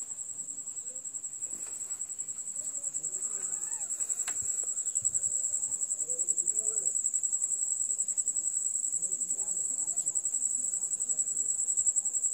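A cricket trilling without a break in a fast, high-pitched pulse, with faint voices low in the background.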